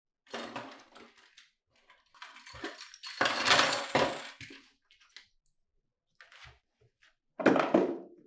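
Foley sound effects of small hard objects clinking and clattering, in three separate bursts with silence between them. The longest and loudest burst is in the middle and carries a thin high ringing tone; shorter bursts come near the start and near the end.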